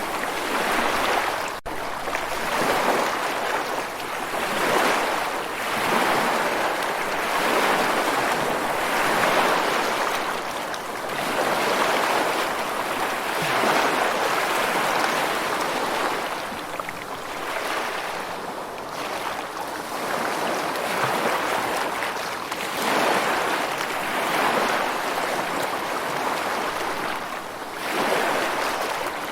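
Ocean waves washing on a shore, a steady hiss of surf that swells and eases every two to three seconds. A very brief dropout about a second and a half in.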